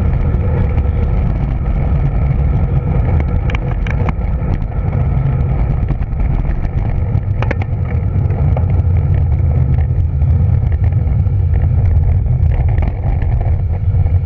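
Heavy wind rushing over the microphone of a bicycle descending downhill at high speed, a loud steady low rumble, with a few sharp clicks around four seconds in and again about halfway through.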